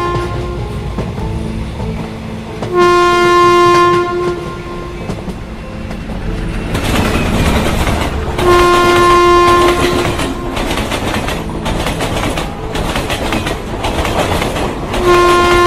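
Train running through on the rails with a steady rumble and clickety-clack, louder from about seven seconds in. The locomotive's horn sounds three long blasts, about five to six seconds apart.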